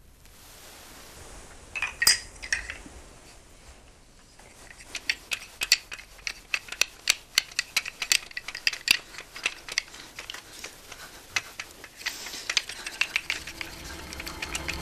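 Game pieces for the board game seunggyeongdo being rolled and handled, making a quick, uneven run of sharp clicks, several a second, from about five seconds in. A couple of single clicks come about two seconds in.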